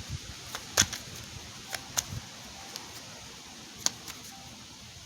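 A few scattered, sharp clicks and taps, the clearest under a second in and another near the end, over a faint steady hiss.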